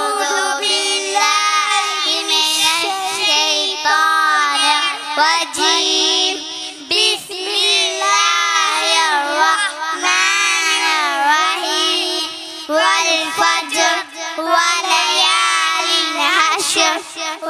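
Three young boys singing a song together into handheld microphones, their voices amplified over the stage sound system.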